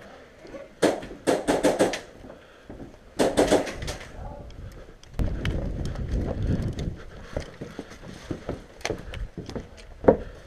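Quick bursts of sharp snaps, like airsoft rifle shots: about five in a row a second in and a few more around three seconds in. A low rushing noise follows, then scattered single knocks.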